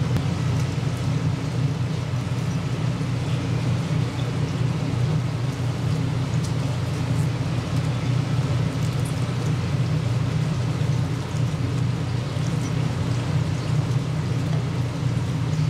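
A steady low rumble with a hiss over it, unchanging throughout, and a few faint ticks here and there.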